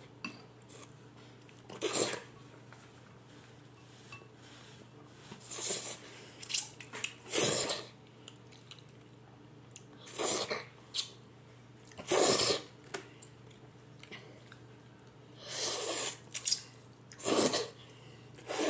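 A child slurping instant noodles off chopsticks: a series of short, loud slurps, about seven in all, one to three seconds apart.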